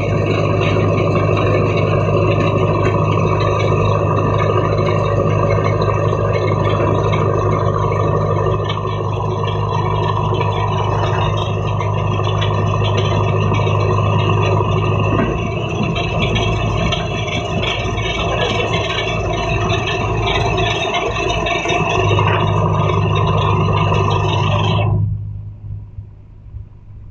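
Recovery truck's engine running steadily under load, driving the crane winch that hauls a crashed truck up the slope on cables. The drone eases off for a few seconds about midway, comes back, then drops away sharply near the end.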